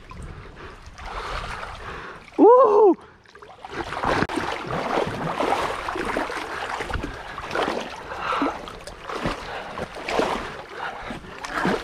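Water splashing and sloshing around a capsized kayak in a current. About two and a half seconds in, a brief, loud pitched tone rises and falls.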